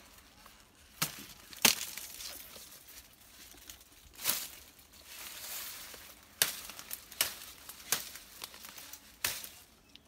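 Sugarcane stalks being cut with a knife: about seven sharp, irregularly spaced cracks amid the rustling and crunching of dry cane leaves.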